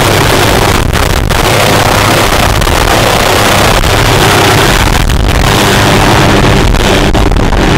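Small Hughes 500-type turbine helicopter lifting off from a hover and climbing away. Its rotor and turbine noise is loud and steady throughout, with wind noise on the microphone.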